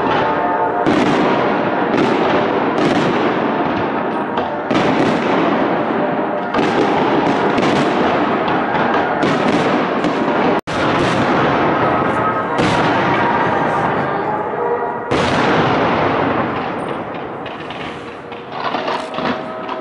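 Fireworks display: aerial shells bursting with sharp bangs, about one every second or two, over a continuous crackle and rumble that dies down near the end. The sound drops out for an instant about ten seconds in.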